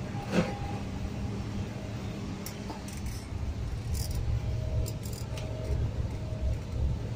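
Coach interior on the move: a steady low road and engine rumble with a faint hum. A sharp knock about half a second in, then a scatter of light clicks and ticks.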